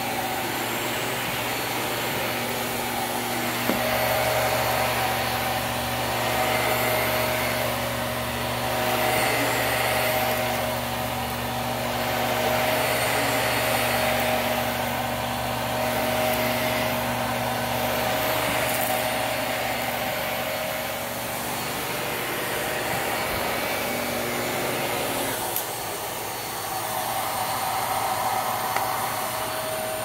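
Hart Pro bagless upright vacuum cleaner running on carpet, a steady motor drone with a steady hum under it. It rises and falls in level every couple of seconds as it is worked back and forth. About 25 seconds in, one of its tones drops out and it runs a little quieter.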